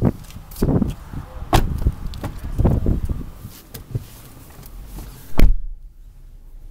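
Knocks and rustling of someone climbing into the front seat of a 2013 Lincoln MKS, then its door shutting with one heavy thump about five and a half seconds in. After the thump the outside noise drops away to a quiet cabin.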